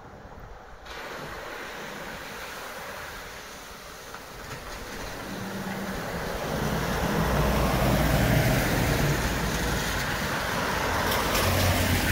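Vehicles driving along a wet, flooded street, tyres hissing through water and engines humming, getting louder as a car comes close and passes about eight seconds in. Another vehicle hums near the end.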